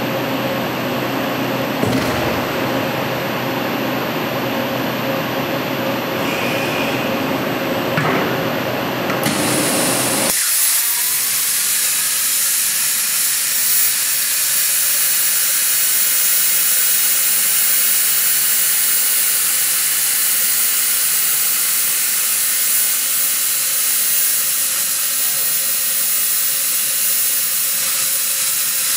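Hypertherm HD plasma torch on a CNC bevel head cutting a hole in a steel pressure-vessel dome. For the first nine seconds there is machine hum with a steady tone. Then a high hiss comes on, and about a second later the hum drops away, leaving the steady hiss of the plasma arc cutting.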